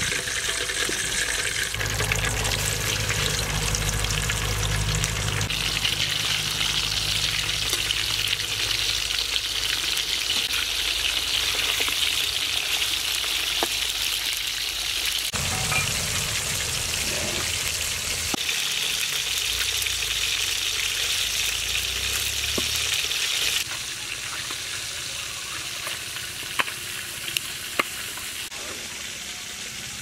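Whole scored fish frying in hot oil in a metal pan, with a steady dense sizzle. Near the end the sizzle drops away to a quieter background with a few light clicks.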